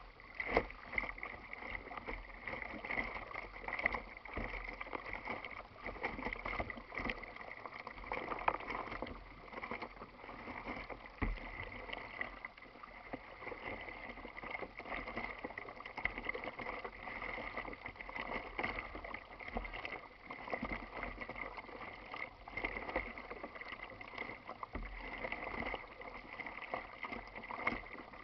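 Choppy water lapping and splashing irregularly against a plastic kayak's hull.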